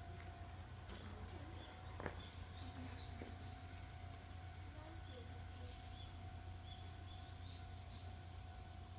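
Steady high-pitched insect chorus over a low background hum, with a single sharp click about two seconds in.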